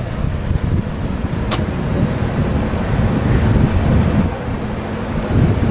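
Wind buffeting the microphone in gusts, a loud low rumble that swells and fades, with a steady high hiss underneath and a single sharp click about a second and a half in.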